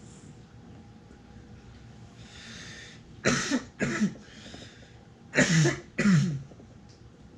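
A man coughing in two pairs of short, loud coughs about two seconds apart, after inhaling vapour from a dab rig.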